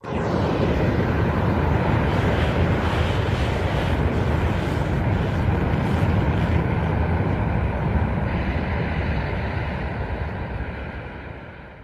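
Kaiju sound effect: a loud, steady rushing rumble with no clear pitch, like jet or rocket thrust. It starts abruptly and fades away over the last few seconds.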